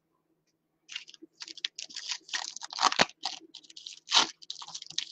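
Wrapper of a Diamond Kings trading-card pack being torn open and crinkled by hand: a run of uneven crackles and rips starting about a second in.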